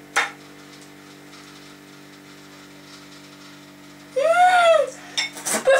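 A fork clicks once on a plate, then a steady low hum fills the room. About four seconds in, a woman makes one drawn-out vocal sound that glides up and back down while eating, and more voice noises follow near the end.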